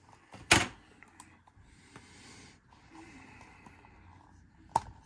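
Trading cards in hard plastic cases being handled: a sharp plastic clack about half a second in, soft rustling and sliding in between, and another click near the end.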